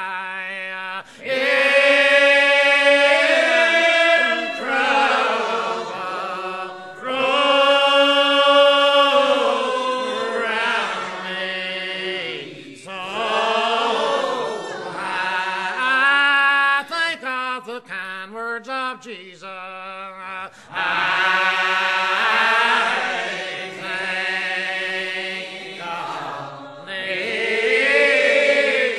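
A group of voices singing a slow hymn in call-and-response style, with long drawn-out notes and short breaks between phrases.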